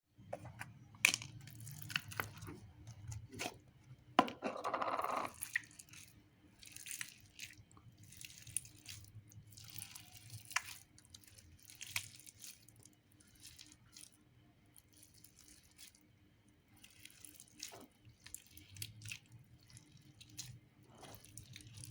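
Slime being squeezed and stretched by hand: irregular wet clicks, pops and sticky crackles, with one longer squelch about four seconds in.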